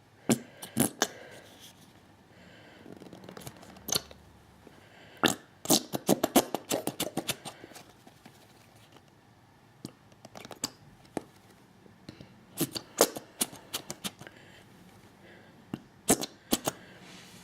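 Aloe vera gel being shaken and squeezed out of a tube: scattered squelches and clusters of quick taps, with a fast run of taps about five seconds in.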